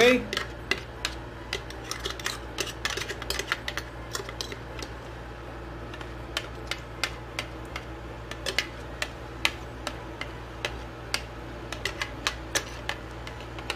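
Light, irregular clicks and taps of a plastic blender jar against a stainless steel bowl as thick blended caper sauce is tipped out of it, over a steady low hum.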